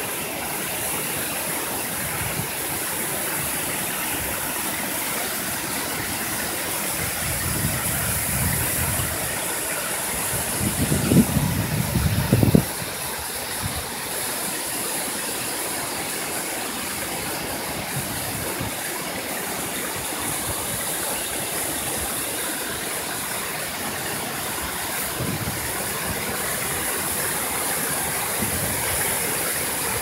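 Steady rush of a waterfall and the stream running over boulders below it. About halfway through comes a few seconds of low rumbling, loudest just before it cuts off abruptly.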